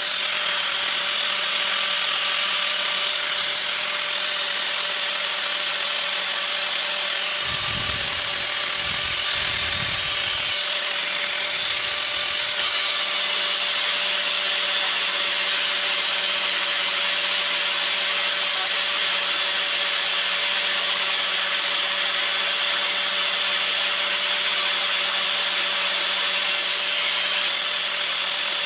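Electric grinder fitted with a sanding disc, running steadily with an even whine while a small piece of wood is pressed against the spinning disc and sanded. A low rumble joins in about a third of the way through.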